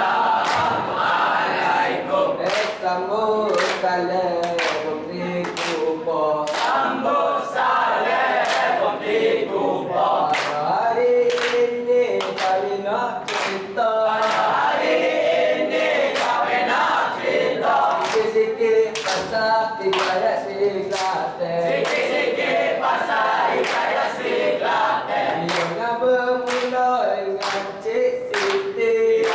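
Dikir barat troupe singing together as a chorus, with sharp, evenly spaced hand claps keeping the beat.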